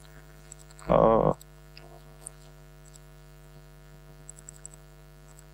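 Steady electrical mains hum in the microphone's audio chain, with a man's short 'uh' about a second in and a few faint clicks near the end.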